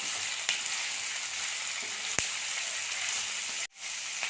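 Onion and green chillies sizzling in hot oil in a karahi, frying lightly just until the raw smell goes. Two sharp knocks sound about half a second and two seconds in as they are stirred, and the sizzle cuts out for a moment near the end.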